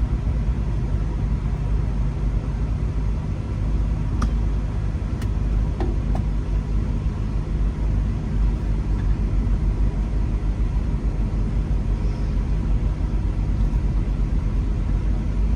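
Steady low drone of engine and road noise inside a moving car's cabin, with a few faint clicks about four to six seconds in.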